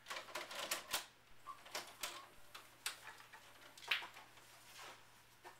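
Quiet, irregular clicks and clunks of a VHS cassette being put into a VCR and the deck loading it, with a short steady mechanical sound a little before the end.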